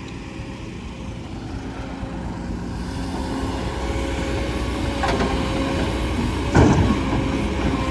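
Truck driving under load, its engine and road noise rising steadily as it gathers speed, with a sharp knock about five seconds in and a louder one around six and a half seconds in.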